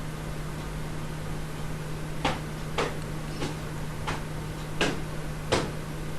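Six sharp clicks about half a second apart, a computer mouse being clicked, over a steady low hum.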